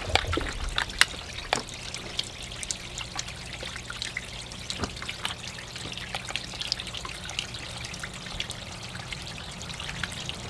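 Water trickling and dripping steadily over the rim and down the sides of a stacked-slate urn fountain, with many small splashy ticks and a faint low hum underneath.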